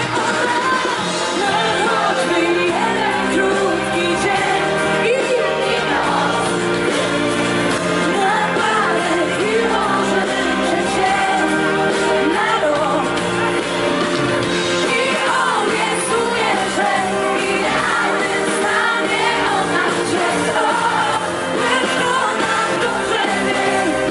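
Live pop band playing with a woman singing lead over a loud PA, heard from within the audience; the stage band has violin, brass, electric guitar and drums.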